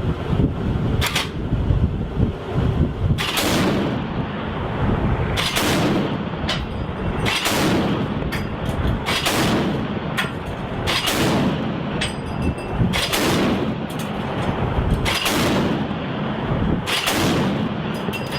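A heavy gun firing a steady series of shots, about nine in all, roughly two seconds apart, each shot followed by a rumbling echo.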